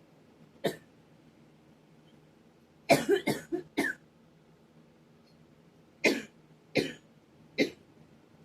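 A person coughing: one cough, then a fit of about five quick coughs in a row, then three single coughs spaced under a second apart. The uploader puts the coughing down to a high pollen count.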